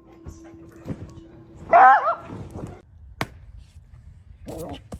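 A dog vocalizing: one loud, wavering call about two seconds in and a shorter, fainter one near the end, with a sharp click in between.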